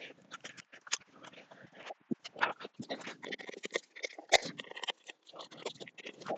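Irregular clicks, knocks and scrapes of hands and tools working on a car's front end while the bumper and its fittings are taken off. A sharper knock stands out a little after four seconds in.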